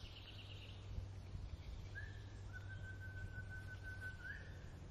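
A single faint, long whistled note, held steady for about two and a half seconds from a little before the middle, rising in pitch just before it ends, over a low rumble.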